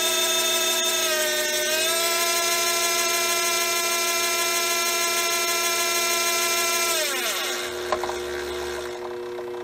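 A DC treadmill motor belt-driving a Craftsman 109 mini lathe runs with a steady high whine that wavers briefly in pitch about a second in. About seven seconds in it winds down, the whine gliding lower and fading, with a click about a second later and a lower steady hum lingering.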